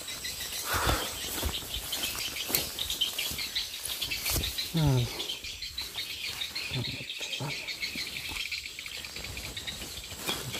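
Insects chirring steadily, with rustling and knocks of grass and vegetation as a caught snakehead is handled on the ground. A brief vocal hum just under halfway through.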